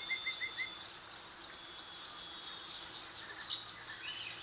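Small birds chirping, with short high chirps repeating several times a second, and a quick run of about six lower chirps in the first second.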